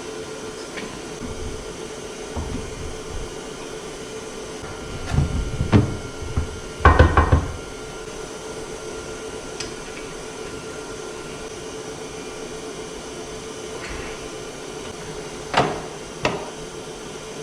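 Scattered knocks and clatter of tools and metal parts being handled during outboard gear case work, over a steady hum. There is a cluster of knocks about five to seven seconds in and two more near the end.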